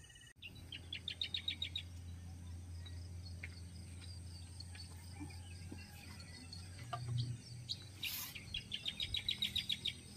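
A night-calling animal gives two rapid trills of sharp, high chirps, about ten a second, one around a second in and one near the end, with scattered single chirps between. A steady low hum runs under it.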